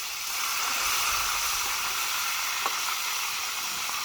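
Parrotfish frying in hot oil over a wood fire: a steady sizzle, with one short click about two and a half seconds in.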